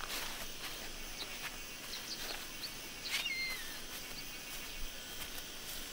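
Small birds chirping in short high calls, with one clear falling call about three seconds in, over a steady outdoor hiss. A few soft steps on grass as sandals are stepped out of.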